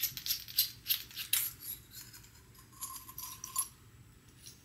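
Light clicks, clinks and scrapes as a small carabiner straw case is pulled open and a metal straw is slid out, with a short faint squeak about three seconds in; the handling stops shortly before the end.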